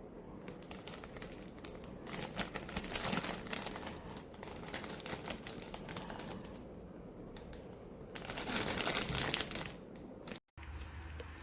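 Packaging crinkling and rustling in irregular bursts as it is handled and opened, loudest in two spells, with a brief cut near the end.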